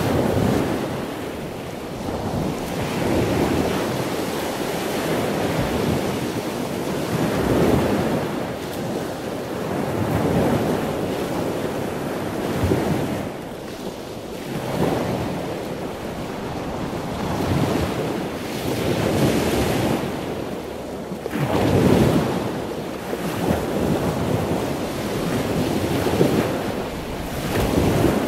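Sea waves washing in with some wind: a rushing sound that swells and fades about every two to three seconds.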